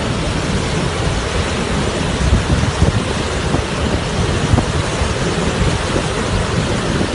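Floodwater pouring from a dam's fully opened gates into the river below, a very large release: a loud, steady rush with a deep rumble.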